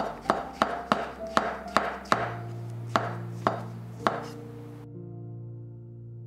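Kitchen knife slicing shiitake mushrooms on a wooden cutting board: quick, even cuts about three a second, then a few slower cuts that stop about four seconds in. Soft background music with held notes plays underneath.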